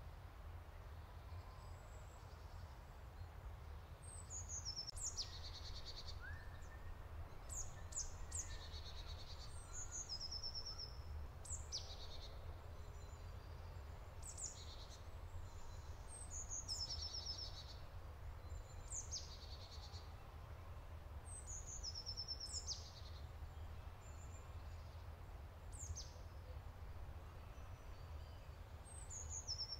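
Songbirds singing in short, high phrases every couple of seconds, several ending in quick trills, over a low steady rumble.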